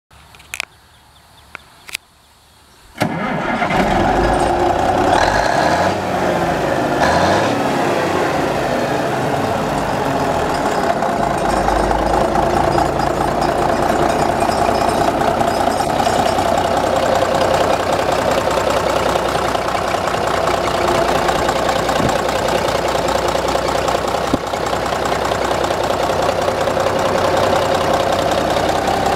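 A few sharp clicks, then about three seconds in the 1966 Peterbilt 351's diesel engine fires and starts, its pitch rising and falling unevenly for a few seconds before it settles into a steady idle.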